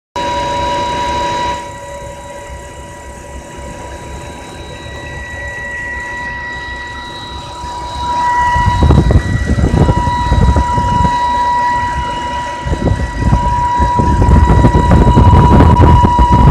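Steady high-pitched whine from a 2010 BMW E90 325i, one held tone with fainter overtones above it. It is an intermittent fault that clears after the engine is switched off and restarted. From about eight seconds in, a loud low rumbling noise joins the whine.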